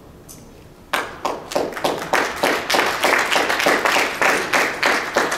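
Audience clapping, starting suddenly about a second in, with separate claps still audible in the mix.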